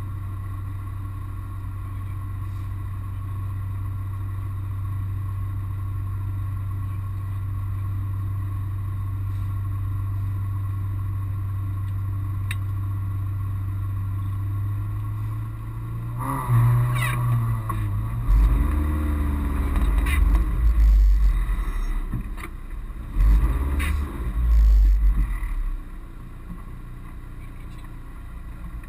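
Mitsubishi Colt rally car's engine idling steadily, heard from inside the cabin. About halfway through it is revved and the car pulls forward, with loud low rumbles in two spells, then settles back to a quieter idle near the end.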